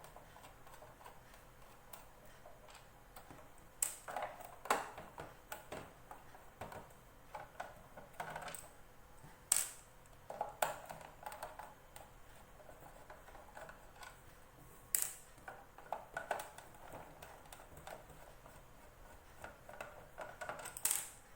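Irregular clicks and light taps of a screwdriver undoing the screws on the plastic back casing of an impulse bag sealer, the small screws and casing being handled between turns.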